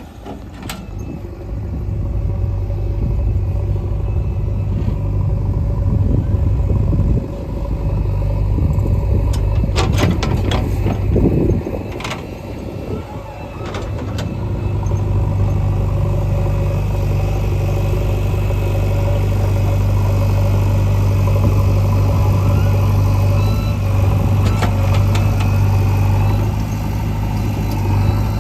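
Heavy diesel engine of earthmoving machinery running under load, easing off and picking up again. A cluster of sharp knocks about ten to twelve seconds in, and from midway on the engine holds a stronger, steady drone.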